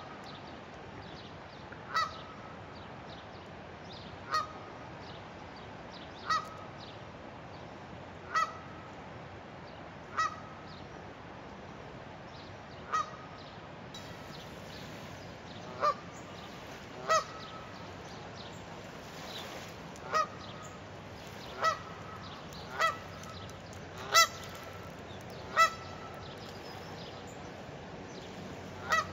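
A goose honking: single short honks repeated every two seconds or so, coming a little closer together toward the end.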